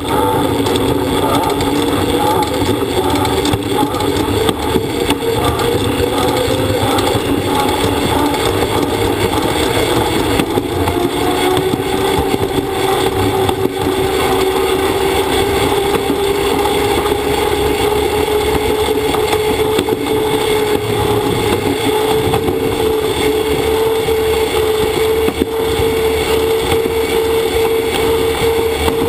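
Shweeb pedal-powered monorail pod running fast along its overhead rail, heard from inside the pod: a loud, steady rolling rumble with a whine that slowly rises in pitch as the pod gathers speed.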